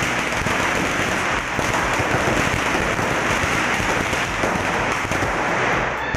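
A ground firework spraying sparks, giving a steady, dense crackling hiss.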